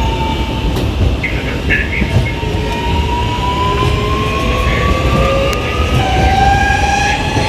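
Alstom Metropolis 8900-series (Fleet A) train's ONIX 233 XHP IGBT-VVVF traction inverter and motors whining as the train picks up speed: several tones climb slowly in pitch over the steady rumble of the running gear, and a new, lower tone steps in about six seconds in.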